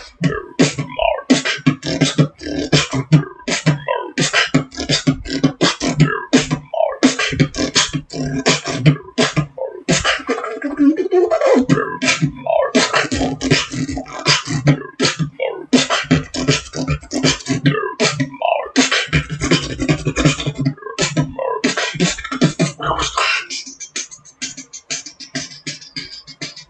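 Beatboxing: fast, rhythmic mouth-made drum sounds, kicks, snares and hi-hat-like clicks, over a low hummed bass. It gets quieter near the end.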